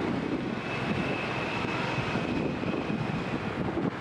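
Steady rumble of street traffic, with motorcycles on the road, and a faint thin high whine through most of it.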